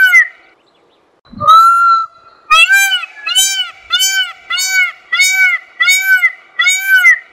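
Indian peafowl (peacock) calling: a single longer honking call about a second and a half in, then a rapid run of short, loud, nasal calls, about two a second.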